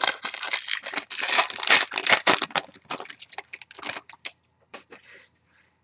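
A trading-card pack wrapper being torn open and crinkled: dense crackling for about three seconds, then scattered light clicks and rustles as the cards are handled.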